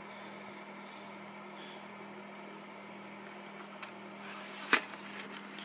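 Steady low hum of room noise, with one sharp plastic clack a little before the end as a VHS tape case is handled.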